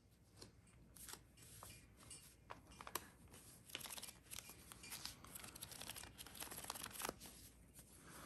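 Faint rustling and flicking of a banded stack of paper banknotes handled in cotton gloves, with a few light ticks.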